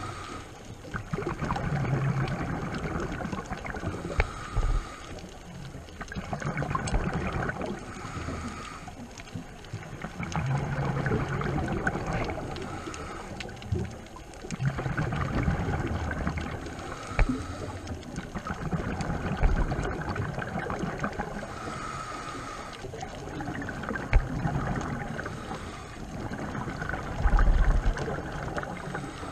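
Scuba diver breathing through a regulator underwater: a hissing inhale alternates with a bubbling exhale in repeating cycles about every three to four seconds.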